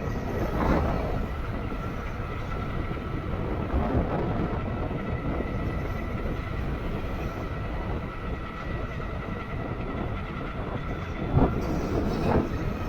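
Strong wind buffeting the microphone of a fast-moving e-bike, a continuous heavy rumble with louder gusts swelling about a second in, around four seconds in and twice near the end. A faint steady high whine runs underneath.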